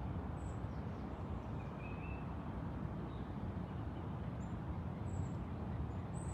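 A steady low rumble of outdoor background noise, with faint, brief bird chirps now and then: one about two seconds in, then several small high ones later on.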